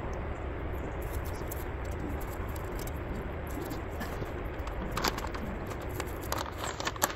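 Steady background hiss, with soft clicks and rustling from about five seconds in as small items are handled and rummaged through.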